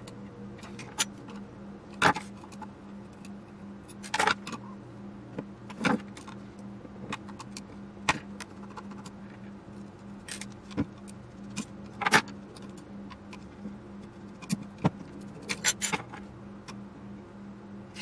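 Irregular sharp metallic clicks and clinks of a screwdriver and small screws against the metal parts of an old aircraft gyro unit as it is taken apart by hand, with a few quick clusters of clinks, over a faint steady hum.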